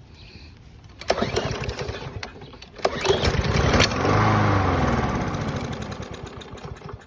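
Briggs & Stratton push-mower engine being pull-started: two rattling pulls on the recoil cord, then the engine fires briefly and runs down with falling pitch, dying within about three seconds. The owner puts this down to a fuel problem in the carburettor, since the engine has compression and spark.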